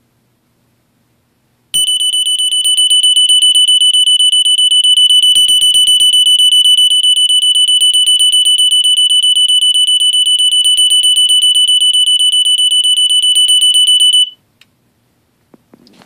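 Gentex 710CC photoelectric smoke detector's alarm sounding on test: a loud, high-pitched tone with a fast pulsing flutter. It starts suddenly about two seconds in and cuts off sharply about two seconds before the end.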